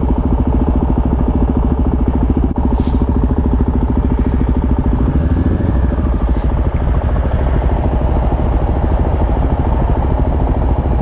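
Motorcycle engine running steadily at low speed, with a rapid even pulse. Two brief hisses come about three and six seconds in.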